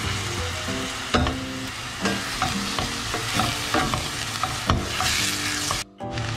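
Ground meat frying and sizzling in a stainless steel pan while a wooden spatula stirs it, with scattered knocks of the spatula against the pan. The sound cuts out briefly near the end.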